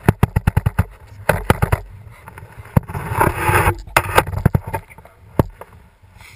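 Rapid sharp clicks and knocks, thickest in the first second, with a scraping rustle about three seconds in, from moving on foot through snow and brush with a hand-held GoPro.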